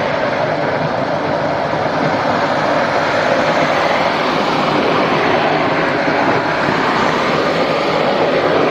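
Philips Series 9000 bagless vacuum cleaner running steadily, a loud even rush of air and motor.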